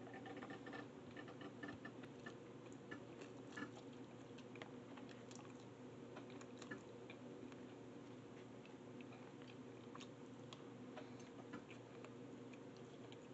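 Faint chewing and slurping of ramen noodles, with scattered small clicks of a fork against a plastic container, over a steady low room hum.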